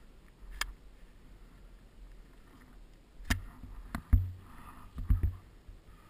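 Action camera jolted while skiing over snow: a run of sharp knocks and low thuds over a faint hiss of skis, the loudest knock a little after four seconds in and two more in quick succession about a second later.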